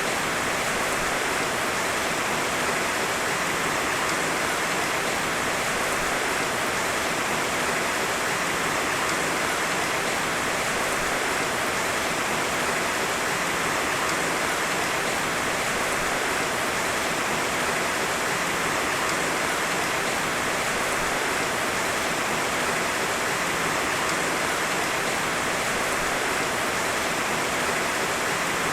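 Heavy rain falling steadily as an even, unbroken hiss, with no thunder.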